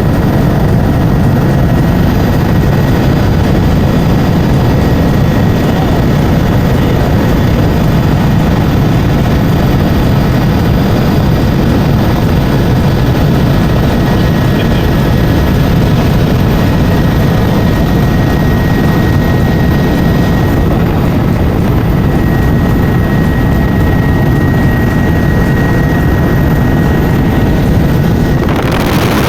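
Helicopter's engine and rotor noise, a loud steady rush with a thin steady whine above it; the sound changes abruptly right at the end.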